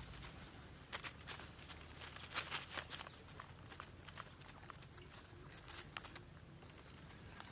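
Dry leaf litter rustling and crackling: a cluster of light crunches during the first few seconds, then scattered softer ones, with a brief high chirp about three seconds in.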